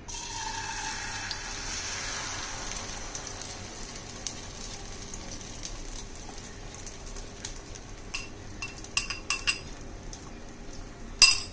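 Beaten egg with chopped onion, tomato and chilli poured into hot oil in a frying pan, sizzling as it hits, the sizzle easing after the first few seconds. From about eight seconds in, a metal spoon clinks and scrapes against the glass bowl, loudest near the end.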